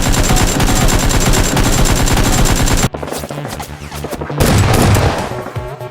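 Loud rapid automatic gunfire that cuts off abruptly about three seconds in, followed by scattered shots and another loud burst near the end.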